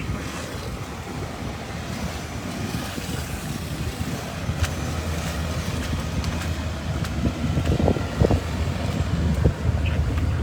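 Strong wind buffeting the microphone over a steady low engine rumble that grows louder about halfway through.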